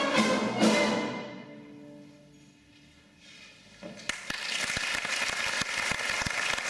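Orchestra ending on a loud final chord that breaks off about a second in and rings away in the hall's echo. After a short near-quiet gap, audience applause starts about four seconds in.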